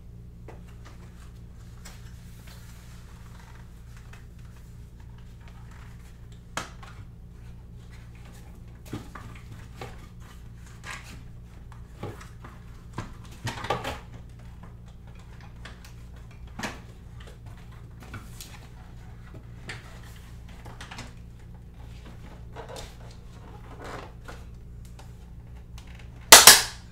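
A new cordless window blind's headrail being fitted into its mounting brackets: scattered light clicks and knocks, a small cluster about halfway through, and one loud, sharp snap near the end as it clips into place.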